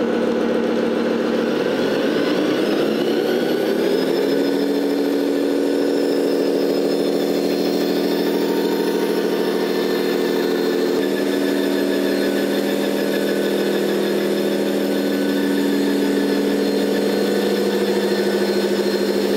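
Loudspeaker sound unit in a 1/14 RC semi truck playing a simulated diesel truck engine. The engine note rises about two seconds in, then holds steady as the truck runs.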